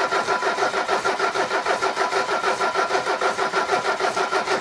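Mercedes 300SD five-cylinder diesel cranked over on its starter without firing, for a compression test: an even, rhythmic chugging at about five compression strokes a second over the starter motor's whine.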